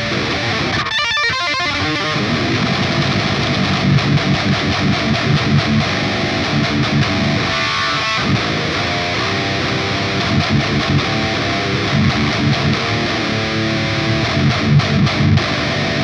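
Eight-string electric guitar tuned to drop G, played through a Line 6 POD HD500 modeller with a heavily distorted metal tone, playing rhythmic riffs.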